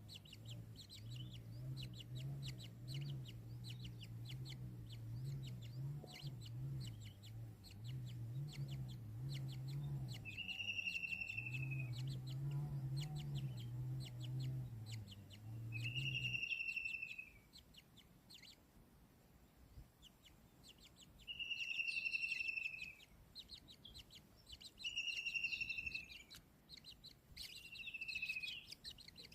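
Bird calls. For the first half a low clucking goes on over dense fast ticking, then stops a little past the middle. After that, short high calls repeat every three seconds or so.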